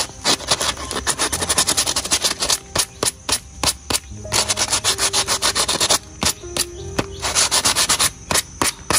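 Quick back-and-forth rubbing strokes on a coconut, coming in three runs with short pauses between them. This is the scrubbing or polishing of the coconut to a gloss.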